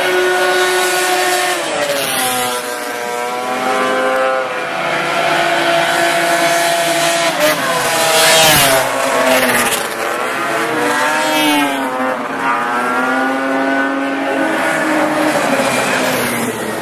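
Several vintage racing snowmobiles with two-stroke engines running hard at high revs as a pack passes close by. Their pitch drops and climbs again several times as sleds go by and get back on the throttle.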